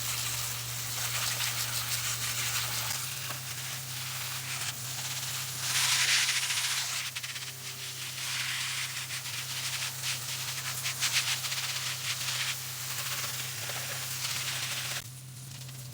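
Steady, loud rushing hiss with fine crackling and rattling through it, cutting off abruptly near the end, over a low steady hum.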